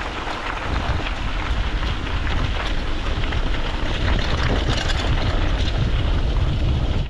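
Wind buffeting the microphone of a camera mounted on a mountain bike rolling down a dirt road: a steady low rumble with scattered small clicks and rattles from the bike over the rough ground.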